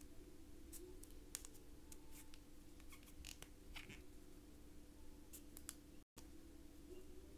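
Faint, scattered small clicks and scratches of a crochet hook working yarn over a low steady hum; the sound cuts out for an instant about six seconds in.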